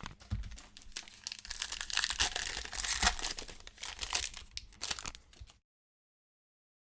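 Cellophane wrapping on Panini Prizm football cello packs crinkling and tearing as the packs are ripped open by hand, an irregular run of crackles that cuts off suddenly about five and a half seconds in.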